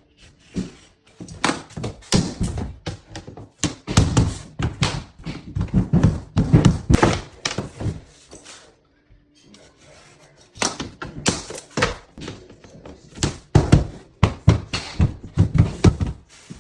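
Vinyl floor planks being tapped into place with a mallet: a run of irregular thunks and taps, several a second, with a pause of about two seconds midway.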